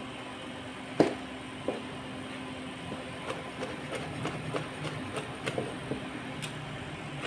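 Large kitchen knife slicing cooked pork liver on a plastic cutting board: one sharp knock about a second in, then a run of light irregular taps as the slices are cut, over a steady low hum.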